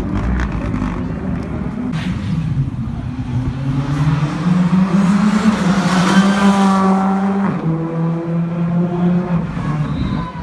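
Rally car accelerating past, its engine note climbing and then held at high revs, loudest around the middle. The note breaks briefly about three-quarters of the way through and then carries on.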